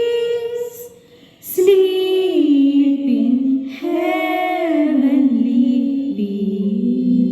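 Unaccompanied high voices singing a slow carol in long held notes that step and glide in pitch, falling quiet briefly about a second in.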